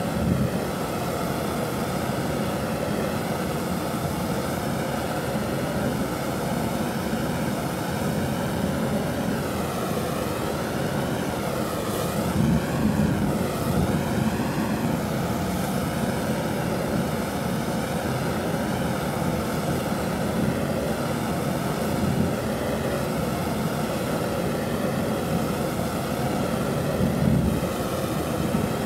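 Gas torch flame burning with a steady rushing hiss as it plays over a wire-wrapped wooden ramrod, wavering slightly as the flame is moved.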